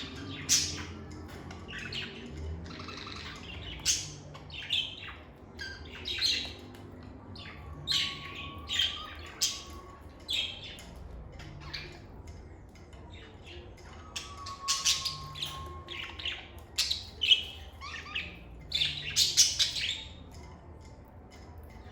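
Lovebirds chirping and calling: many short, sharp, high-pitched calls in irregular succession, busiest about two-thirds of the way in and thinning out near the end.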